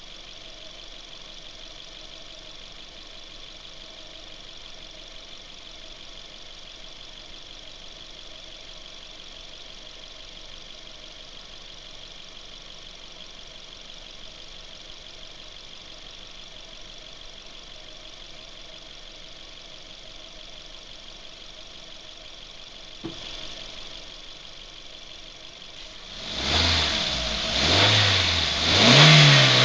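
Suzuki Ignis engine idling steadily with a thin high whine, then a single click about 23 seconds in. Near the end the engine is revved three times in quick succession, each rev rising in pitch and louder than the last.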